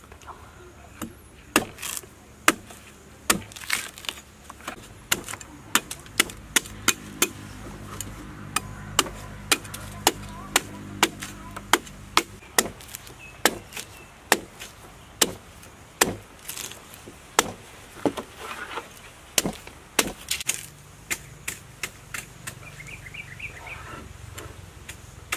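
A cleaver chopping into the husk of a green young coconut on a wooden board: repeated sharp strikes, about one or two a second, as the husk is trimmed away.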